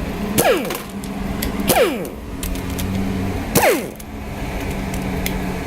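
Small power tool triggered in three short bursts, each ending in a quick falling whine as the motor spins down, likely backing out the valve cover bolts, over a steady low hum.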